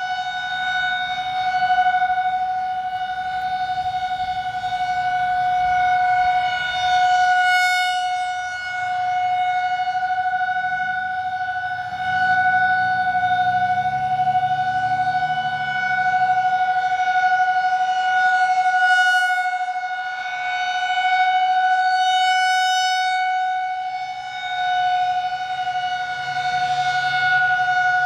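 Federal Signal 2001-SRNB rotating electromechanical siren sounding a steady single-tone alert. The pitch holds constant while the loudness swells and fades gently as the slowly turning horn sweeps past.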